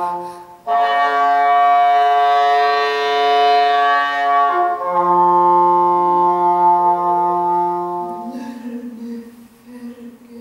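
English horn playing long held notes in contemporary chamber music. One passage is a dense, chord-like sound of several tones at once, and the sound fades to a softer tone near the end.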